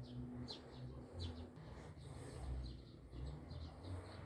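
Small birds chirping faintly: short, high, downward chirps repeated two or three times a second, over a faint low rumble.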